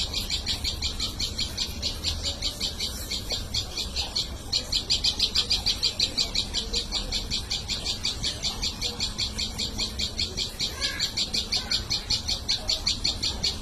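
A bird calling in a fast, steady series of high chirps, about four to five a second, with a brief break about four seconds in.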